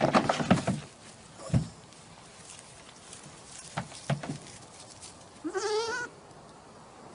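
An animal bleating: a loud call right at the start, then a few short knocks, and a second call with a quavering, wavering pitch about five and a half seconds in.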